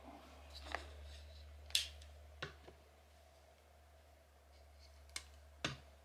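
About five sharp clicks and light taps as battery-powered LED pillar candles are handled, switched on and set back down on a tabletop; the loudest comes about two seconds in.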